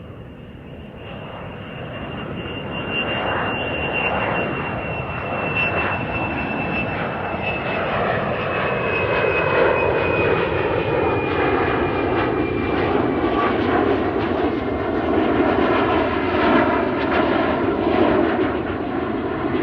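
Jet aircraft approaching and passing close by. A high engine whine slowly falls in pitch as the engine noise grows louder over the first eight seconds or so, then a loud steady roar of jet exhaust holds.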